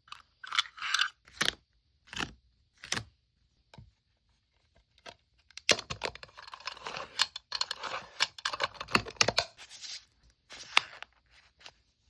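Plastic packing materials for a photocard being handled. There are a few separate sharp crackles and taps, then a dense stretch of crinkling and rustling from about six to ten seconds in.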